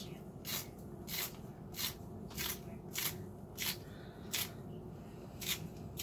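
Kitchen scissors snipping green onion stalks: a crisp snip about every two-thirds of a second, eight in all, the last after a longer pause.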